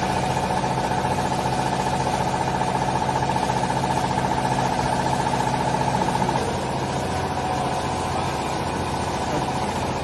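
Hydraulic power unit of a vertical clothes baler running: electric motor and pump giving a steady hum with a pump whine above it. About six seconds in the hum changes and gets slightly quieter.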